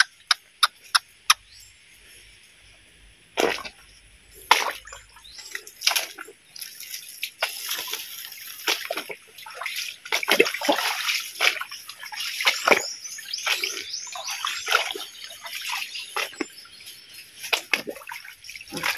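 Footsteps through a shallow forest creek and its leaf-littered bank: irregular splashing and sloshing of water with rustling, crackling leaves and twigs, and a few sharp clicks in the first second and a half.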